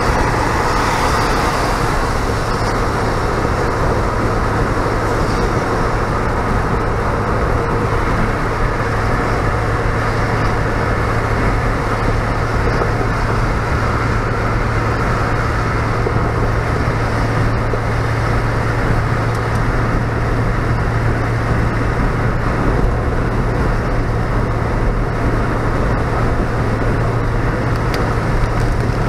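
Jeep driving at highway speed on wet pavement, heard from inside the cab: a steady hiss of tyres and spray on the wet road over a constant low drone from the engine and drivetrain.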